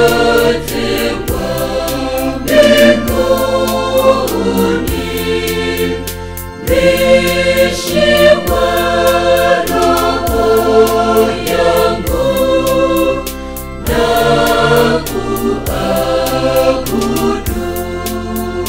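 Mixed choir singing a Swahili gospel hymn in harmony, over a steady percussion beat.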